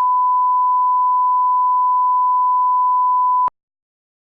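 A single steady electronic beep, a pure sine tone like a test tone, held at one pitch and cutting off abruptly about three and a half seconds in.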